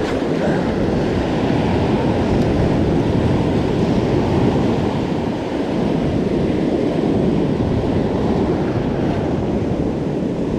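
Ocean surf breaking on a beach, with wind buffeting the microphone: a steady rushing noise.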